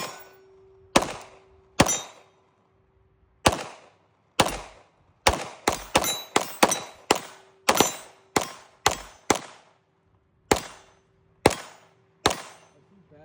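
A string of about eighteen single gunshots, each with a short echoing tail, fired at an uneven pace. The shots come slowly at first, quicken to two or three a second through the middle, then slow again near the end.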